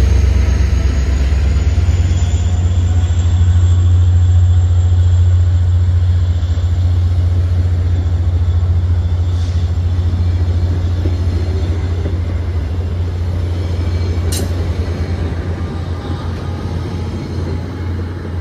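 VIA Rail passenger train passing close by: the EMD F40PH-2 diesel locomotive's deep engine rumble draws away as the coaches roll past on the rails. The rumble slowly fades, with one sharp click about fourteen seconds in.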